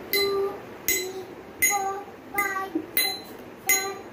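A small steel container tapped over and over with a spoon or toy utensil: sharp ringing taps, a little under one a second and slowly speeding up, each a clear metallic note that dies away within half a second.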